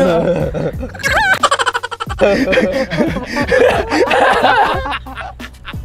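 Two men laughing together in repeated bursts.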